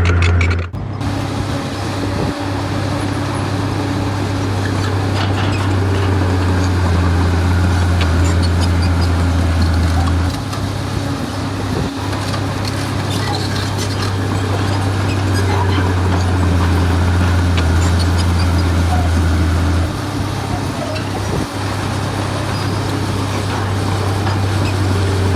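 Heavy earthmoving machine's diesel engine running steadily under load, its low drone shifting twice as the load changes, with a few short knocks.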